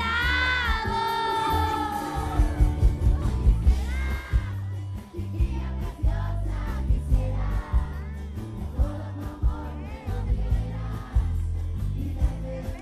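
Live pop music over a PA: a male singer on microphone over a backing track with heavy bass and a steady drum beat. The voice holds long gliding notes near the start.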